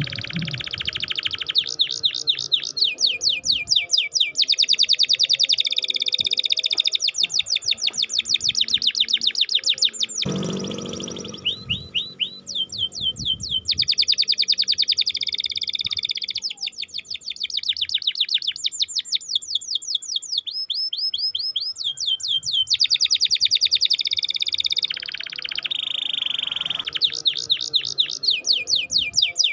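Domestic canary in full song, rattling off fast trills of repeated high 'cuit-cuit' chirps in phrases a few seconds long with short breaks between them. A brief low noise comes about ten seconds in.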